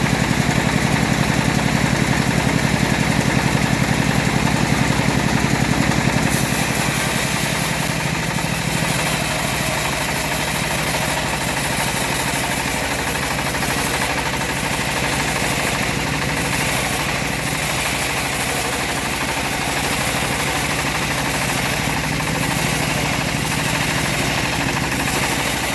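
Engine of a homemade bandsaw mill running with a fast, even pulse. About six seconds in the low engine note drops and a steady hiss rises over it, as the blade cuts through teak.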